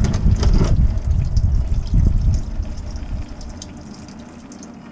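Hot engine oil pouring from a Ford F-150 EcoBoost's oil-pan drain hole and splashing into a plastic drain pan, loud for about the first three seconds and then easing off.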